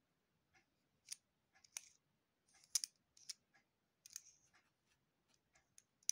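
Faint metallic clicks and light scrapes as a Pentacon microscope adapter is turned in the hands, its metal rings and fittings ticking and rubbing together. They come irregularly, a few a second at most, with the sharpest click right at the end.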